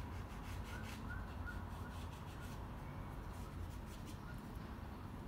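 Faint scratching and rubbing of a paintbrush worked over canvas paper. A bird chirps a few short times about a second in, over a low steady background rumble.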